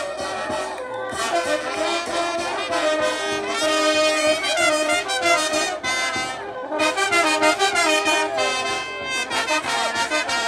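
Brass band music, trumpets and trombones playing a melody over a steady drum beat.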